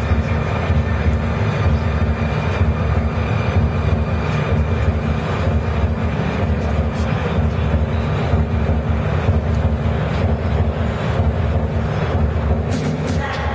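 Steady low rumble of a crowded exhibition hall's background din.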